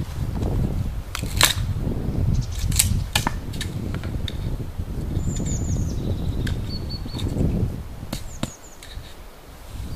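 Hatchet splitting kindling on a chopping block: a run of sharp knocks and cracks as the blade strikes and splits the wood, irregularly spaced. Between the strikes there are a few short, high bird chirps.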